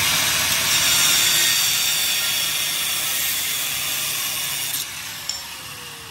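Angle grinder grinding into the steel frame of a 1959 Cadillac, trimming it back for control-arm clearance: a steady, high-pitched grind. About five seconds in it lets off and the disc spins down with a falling whine.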